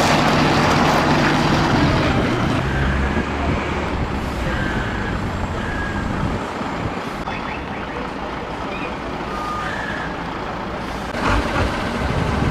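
Heavy truck's diesel engine running as it hauls a large boat on a low-loader trailer, with a few short high tones in the middle stretch and a sudden change about eleven seconds in, after which the engine hum comes back.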